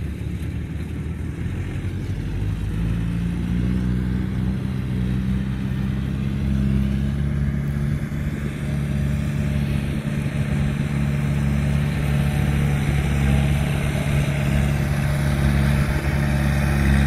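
Engine of a tracked rice-hauling carrier loaded with sacks, running at steady speed and getting louder as it drives closer, with a combine harvester running behind it.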